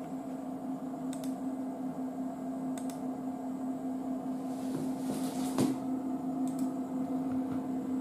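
A few separate computer mouse clicks, a second or more apart, over a steady low hum.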